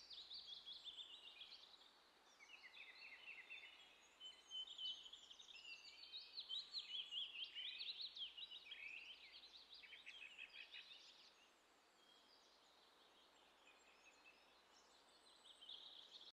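Faint chorus of small birds chirping and trilling, many quick calls overlapping. It thins out about twelve seconds in and picks up again near the end.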